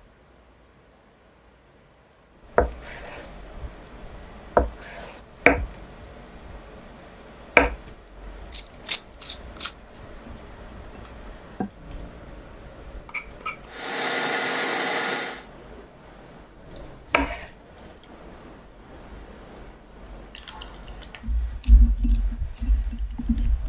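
Kitchen preparation sounds: utensils and dishes clinking and knocking in scattered sharp strikes, with a steady hiss for about a second and a half midway and louder rumbling handling noise near the end.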